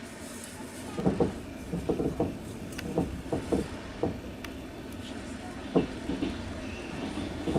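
Passenger train running, heard from inside the carriage: a steady rumble with wheels knocking over rail joints in irregular clusters of clacks.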